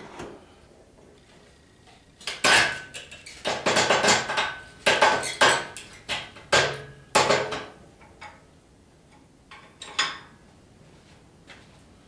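Metal clanking and rattling from the chain-hung transmission and transfer case shifting on an engine hoist: a dense run of clanks with a faint metallic ring lasting about five seconds, then a few single clanks near the end.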